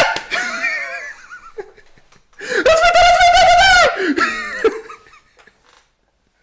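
A woman and a man laughing hard. A long high-pitched peal of laughter comes about two and a half seconds in, followed by a few smaller laughs that fade away.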